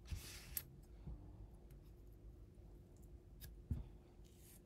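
Faint rustle of fly-tying hair being handled, with a few small sharp clicks, the loudest about three and a half seconds in, over a low steady hum.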